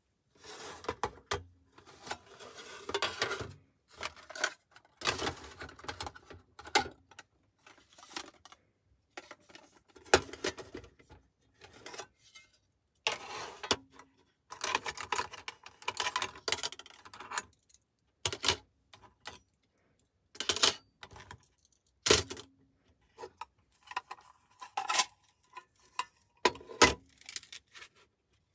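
Small hard objects being handled and set down: irregular clicks, clinks and clatter in short bursts separated by brief silences, with a few sharper knocks standing out.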